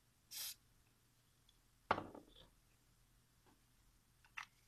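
A short hiss from an aerosol can of glue accelerator sprayed onto a freshly glued plastic miniature, then a sharp knock about two seconds in, and a couple of faint clicks near the end.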